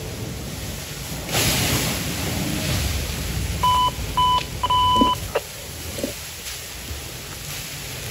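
Fire hose stream rushing and hissing as it hits a burning rubbish pile, louder for a couple of seconds about a second in. In the middle come three electronic beeps, two short and one longer.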